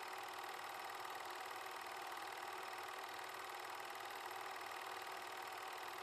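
Film projector running: a steady, fast mechanical clatter and whir with hiss, the sound of the Super 8 home movie being projected.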